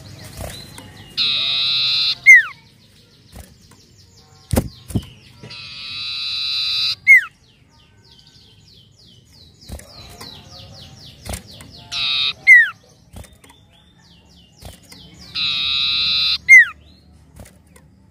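A common iora (cipoh) singing: four long, buzzy trills of about a second each, every one ending in a loud, sharp downward-slurred whistle, with a run of quick repeated short notes in the middle. A couple of sharp knocks come about four and a half seconds in.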